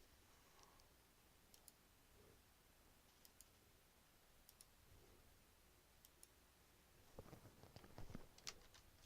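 Faint, scattered computer mouse clicks over near silence, with a short run of soft knocks near the end.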